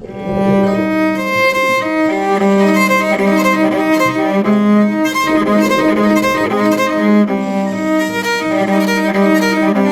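Background music led by bowed strings: sustained violin and cello notes in a steady, flowing melody that comes in at the start.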